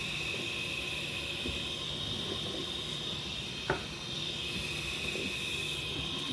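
Steady hiss with a faint low hum under it, and one sharp click about three and a half seconds in.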